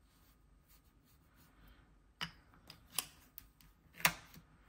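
Quiet handling of nail-stamping tools: a few light clicks and taps as the stamping polish bottle is capped and set down, then a sharper click and short scrape about four seconds in as a plastic scraper card is drawn across the metal stamping plate to clear off the excess polish.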